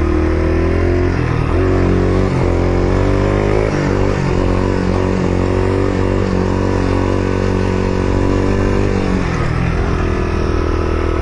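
Yamaha XT250's single-cylinder four-stroke engine revving under load as the dirt bike is ridden uphill for a wheelie. The pitch climbs over the first few seconds, holds, then drops about nine seconds in.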